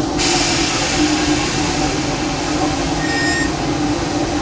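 Cab noise of a running live-steam locomotive, the E.P. Ripley: a steady mechanical rumble under a hiss of steam. The hiss swells suddenly just after the start, and a brief high squeal comes about three seconds in.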